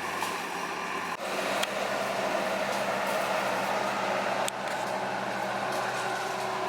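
Bobcat skid steer engine running steadily, a continuous machine hum whose sound shifts abruptly about a second in and dips briefly past the middle.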